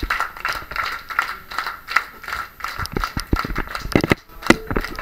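Applause from a small crowd, with irregular, sharp hand claps close to the microphone.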